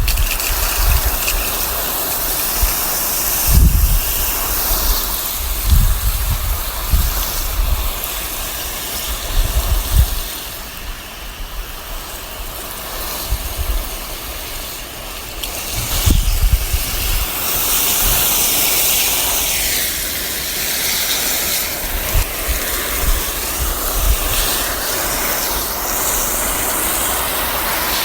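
Water spraying from a garden hose onto plants: a steady hiss whose tone shifts as the spray moves, with occasional low bumps.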